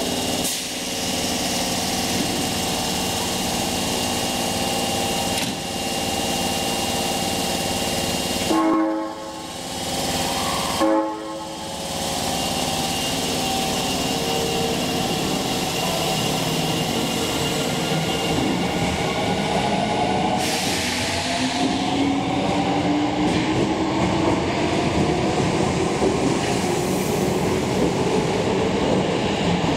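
Osaka Metro Tanimachi Line subway train running. From about two-thirds of the way in, its motor whine rises steadily in pitch as the train picks up speed. The sound drops out briefly twice about a third of the way in.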